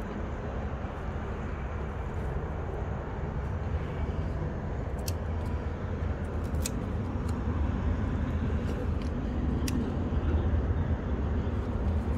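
Steady low outdoor rumble with a few faint, sharp clicks.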